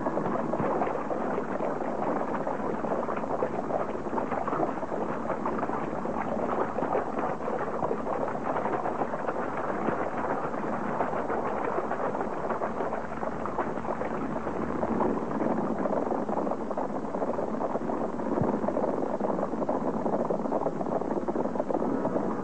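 Steady, dense crackling rumble of a battle sound effect on an old film soundtrack: the din of horsemen charging and fighting.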